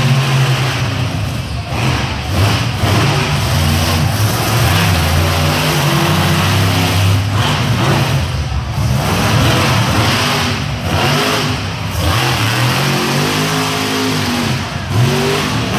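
Monster truck engines revving loudly as the trucks drive around a dirt arena, the pitch rising and falling with the throttle.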